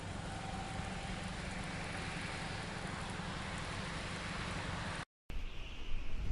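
Steady outdoor ambience of a snowstorm: a wash of wet-road traffic and wind noise. About five seconds in it cuts abruptly to louder, gusty wind buffeting the microphone.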